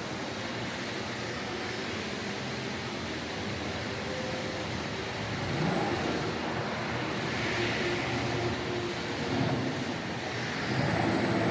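ABB IRB2600ID industrial robot moving on its linear track: a steady machine hum and whine from its servo drives, swelling louder several times as it moves.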